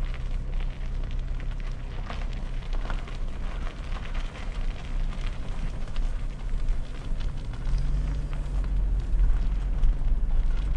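A car rolling slowly, heard from inside the cabin: low engine and road rumble with a steady crackle of tyres on the pavement. The engine note rises briefly about eight seconds in.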